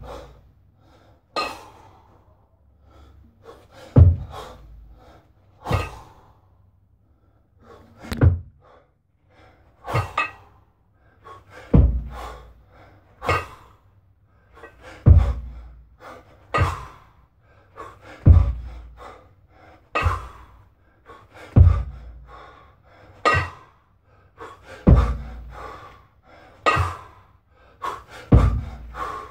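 Double kettlebell lifts: a man breathing hard and exhaling sharply with each rep, with a dull thud about every three seconds as each rep lands.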